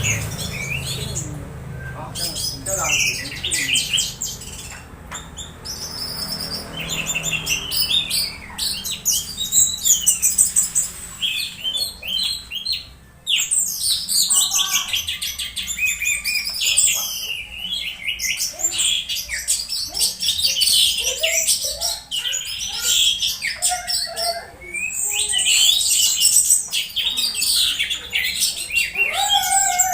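Orange-headed thrush singing: a fast, varied run of high chirps, whistles and slurred notes, nearly unbroken, with a short pause about halfway through.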